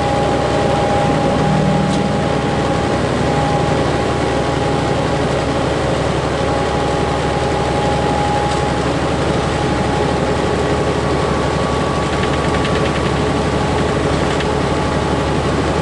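Steady engine and road drone inside a Freightliner semi truck's cab, with a rattle somewhere in the cab that the driver places low down, near the cabinet area rather than up above.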